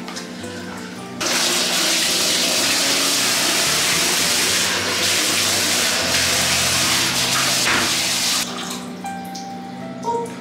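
Water running hard into a bathtub as a dog is rinsed. It starts suddenly about a second in and is shut off about eight seconds in.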